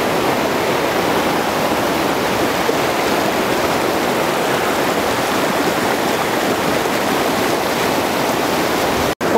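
Rushing water of a spring-fed mountain stream, a steady loud rush that cuts off suddenly near the end.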